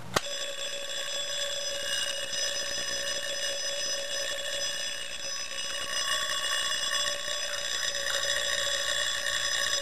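Edwards 3-inch fire alarm bell ringing continuously, set off by a Simplex pull station; a single sharp click just as it starts, then an even, unbroken ring.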